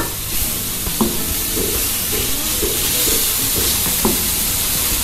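Shredded chayote sizzling steadily in oil and spice paste as it is stir-fried in an aluminium wok until it wilts, with the spatula stirring and knocking twice against the pan.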